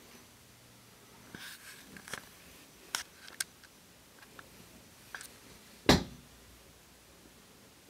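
Handling noise from a handheld camera: scattered faint clicks and rustles, with one sharper knock about six seconds in.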